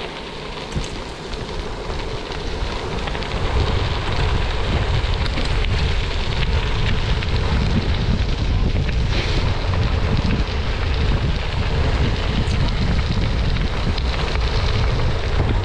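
Wind buffeting the microphone of a camera moving along with cyclists on a gravel road: a steady rushing with a heavy low rumble that grows louder about four seconds in and then holds.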